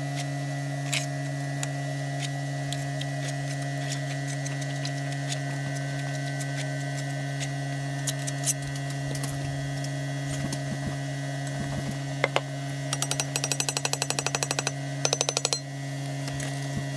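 Steady machine hum with scattered clicks, and a fast rattle of about ten clicks a second a little past the middle, then once more briefly.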